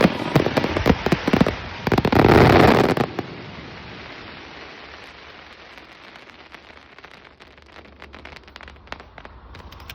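Fireworks crackling: a dense spell of cracks and pops with a loud crackling hiss for about the first three seconds, then thinning to scattered pops that fade away.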